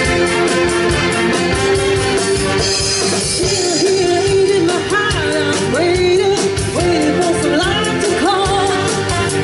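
Student big band playing live: saxophones, trumpets and trombones over a drum beat. A young woman sings into a microphone from about four seconds in.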